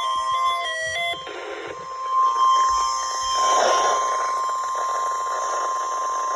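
NOAA Weather Radio warning alarm tone: one steady, loud tone of about 1 kHz, carried over radio static. For about the first second a stepped electronic beeping melody plays over it.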